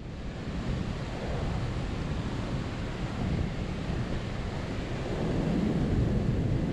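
Wind buffeting the microphone over a steady rush of water pouring from a dam's outlet pipe; it grows a little louder about five seconds in.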